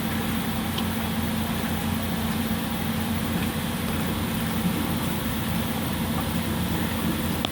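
A steady low mechanical hum with one constant tone, unchanging throughout.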